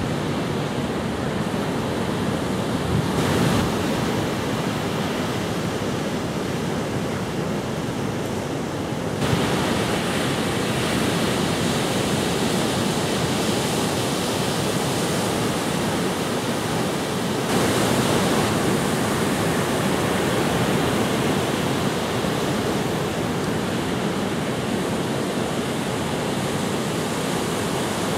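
Ocean surf: waves breaking and washing ashore in a steady rushing noise, which steps louder abruptly about nine seconds in and again about seventeen seconds in.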